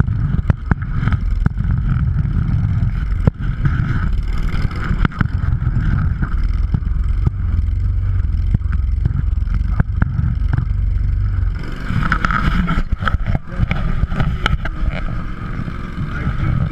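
Tracked off-road vehicle on rubber tracks driving, its engine giving a steady low drone under frequent sharp knocks and rattles. The low drone eases off about twelve seconds in.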